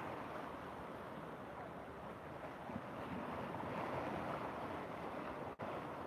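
Fast-flowing muddy river rushing and churning, with waves breaking against the bank: a steady, even rush of water. The sound cuts out for an instant just before the end.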